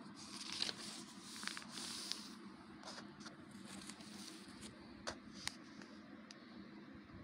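Textbook paper pages rustling and crinkling as they are handled and turned, mostly in the first couple of seconds, with a few short sharp clicks and crackles later.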